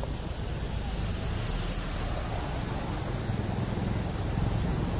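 Motorbikes and an autorickshaw driving through a flooded street: engines running over a steady low rumble, with water swishing and splashing under their wheels.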